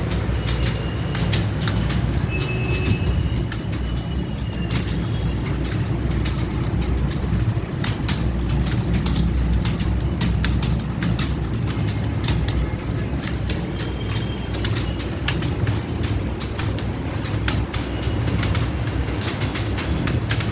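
Computer keyboard being typed on fast: a continuous run of irregular key clicks over a steady low hum.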